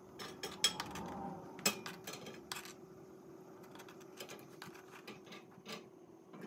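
A knife scraping sliced sausage off a plastic cutting board into a frying pan, the pieces dropping in with a scatter of clicks and taps, loudest in the first three seconds. A steady low hum runs underneath.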